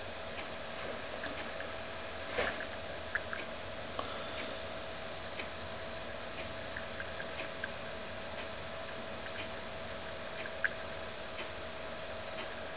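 Palladium-bearing silver crystals reacting in 3% hydrogen peroxide: scattered faint pops and ticks of bubbles, a few sharper ones about two and a half seconds in and near the end, over a steady faint hum. The fizzing is the peroxide breaking down on the palladium, which pure silver would not cause.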